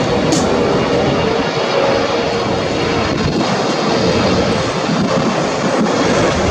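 Jet airliner on its landing approach, engines making a steady, loud rush with a held whine.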